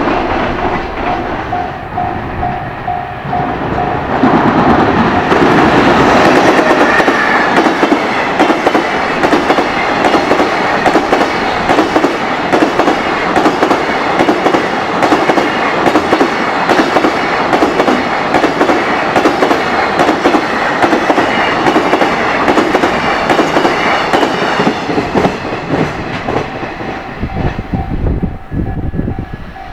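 Freight train passing at speed, its wheels clattering rhythmically over the rail joints for about twenty seconds before it fades. A level-crossing warning bell dings at the start and again near the end.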